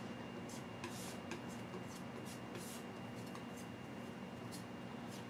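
Faint crinkling and rubbing of a metal oil-paint tube being squeezed out, heard as several short scratchy swishes over a steady low hum.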